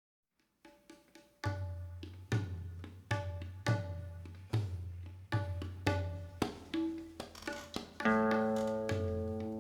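Tabla played in a slow, even pattern, a stroke about every 0.8 seconds, each combining the deep ringing boom of the bass drum with the pitched ring of the treble drum. A sustained chord enters about 8 seconds in.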